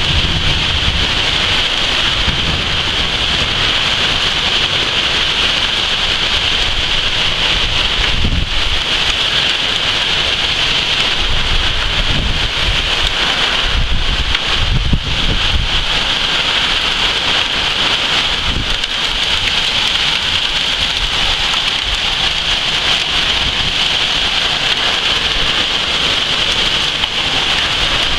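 Heavy rain pouring down in a storm, a dense steady hiss, with low rumbles swelling and fading several times.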